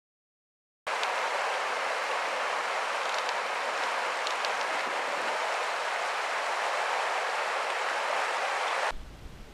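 Silence, then about a second in a fast-flowing stream swollen after heavy rain, rushing steadily over stones. Near the end it cuts off to quieter low rumbling wind on the microphone.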